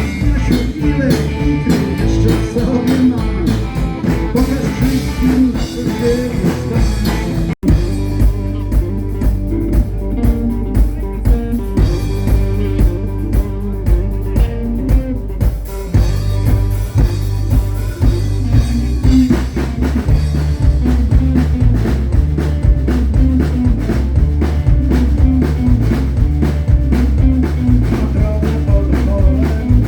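Rock band playing live: drum kit keeping a steady beat with rimshots, over bass and electric guitar. The sound cuts out for an instant about seven and a half seconds in.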